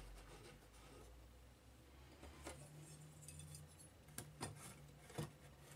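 Near silence, with a few faint clicks and clinks in the second half, the last and loudest near the end, as parts of a homemade wooden CNC frame with steel guide rods are handled.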